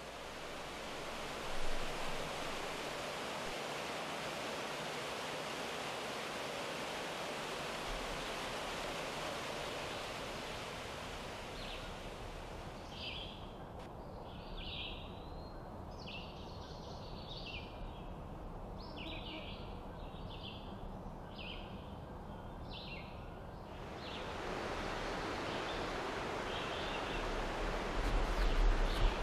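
Steady rushing of a waterfall. About halfway through the rush drops back and a bird sings a string of short, high chirps for about ten seconds, then the rushing returns.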